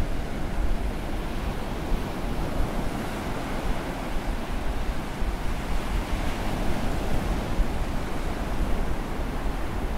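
Ocean surf washing onto a beach, with wind buffeting the microphone and adding a low rumble.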